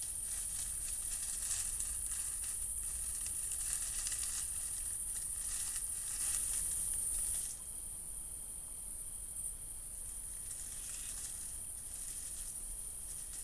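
Night insects chirping in a steady, high-pitched chorus, with faint scratchy crackles through the first half.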